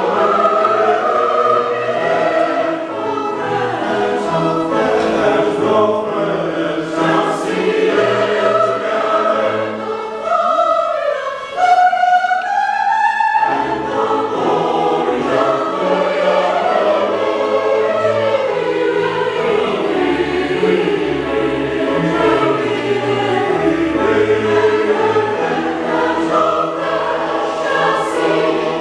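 Mixed choir singing with a small orchestra accompanying. About halfway through, the low parts drop out for a few seconds, leaving a single rising line, and then the full ensemble comes back in.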